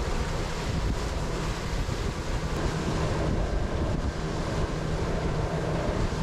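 Steady wind buffeting the microphone, with small waves washing against the boat.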